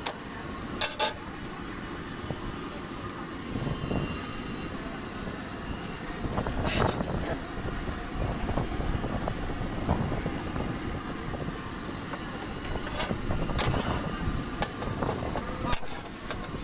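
Metal spatula clinking and scraping against a flat iron tawa a few times while a bread omelette is flipped and pressed, over steady outdoor street noise with faint voices.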